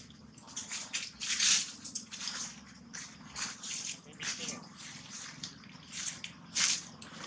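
Irregular soft crackles and clicks from long-tailed macaques shifting and feeding on dry leaf litter, a little louder about one and a half seconds in and again near the end.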